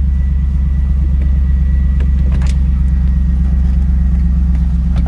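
2002 Chevrolet Camaro Z28's LS1 5.7-litre V8 idling steadily shortly after a cold start, heard from inside the cabin, with a couple of faint clicks.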